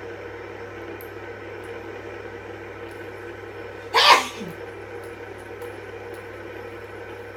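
A person sneezes once, loudly and briefly, about four seconds in, over a steady faint hum.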